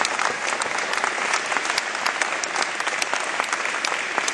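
Audience applauding: many hands clapping together, steady and easing off a little toward the end.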